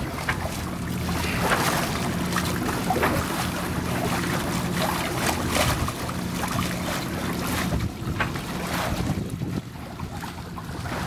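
Sailing catamaran's bow hull cutting through the sea: water swishing and splashing along the hull, with wind buffeting the microphone. A low steady hum runs underneath until about eight seconds in.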